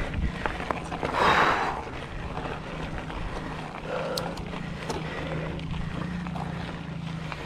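Mountain bike being ridden on a trail: steady low rolling hum with a few short rushes of noise and scattered rattling clicks.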